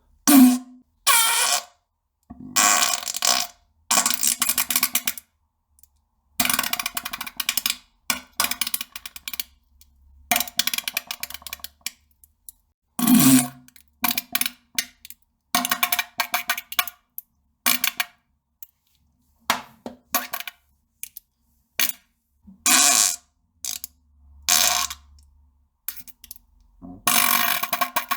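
A string of about twenty separate farts, each lasting from a fraction of a second to a second and a half, with short silences between them; one about halfway through drops in pitch.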